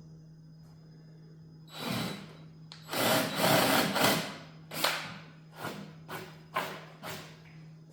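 Workshop work noise: a short burst about two seconds in, a louder noisy stretch of about a second, then five sharp short bursts of noise or knocks, over a steady low hum.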